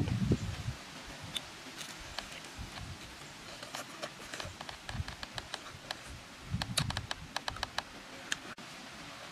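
Eating roasted chicken up close: a run of small crisp clicks and smacks from chewing and tearing the meat, thickest around four to five seconds in and again near seven seconds, with a few soft thuds at the start and around seven seconds.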